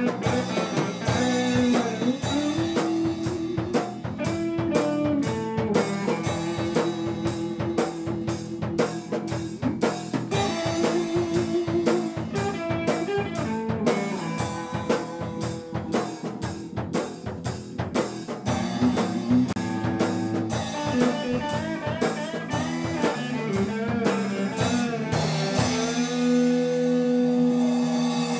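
Rock-blues band playing an instrumental passage, with a busy drum kit and guitar. Near the end the drumming drops away and a held chord rings.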